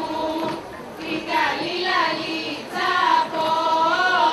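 A group of women singing a slow Thracian Easter dance song together, unaccompanied, in long held notes with small ornaments.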